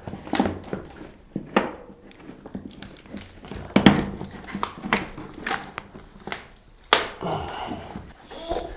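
A studded fat-bike tyre being worked onto its rim by hand: a run of irregular knocks, clicks and rubbery scuffs, the loudest about four and seven seconds in.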